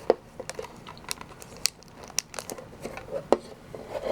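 Crinkling and sharp clicks of Pokémon card mini tins and their wrapping being handled and opened.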